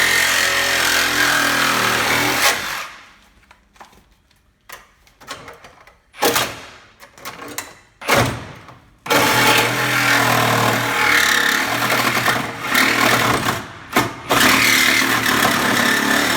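Handheld power tool cutting through a Corvette's rear body pillar. It runs steadily, drops to a few short blips for several seconds, then runs steadily again from about halfway through.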